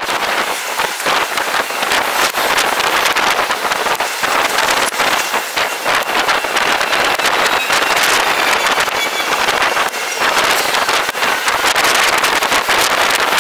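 Wind blowing across the microphone outdoors: a loud, steady rushing hiss that starts abruptly.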